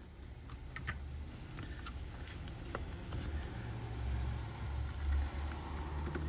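A low, steady rumble that swells to a peak about five seconds in, with scattered light clicks and taps of small latch parts being handled.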